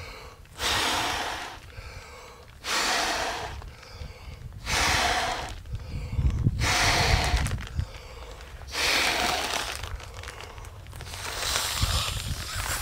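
A person blowing hard by mouth into the valve of an inflatable backpacking sleeping pad: six long exhalations about two seconds apart, with quieter breaths drawn in between, as the pad fills.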